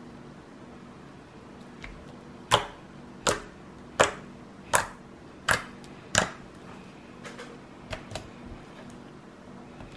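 Slime being pressed and kneaded by hand, giving sharp clicking pops as trapped air bursts out. There are about six loud pops under a second apart, then a few fainter ones.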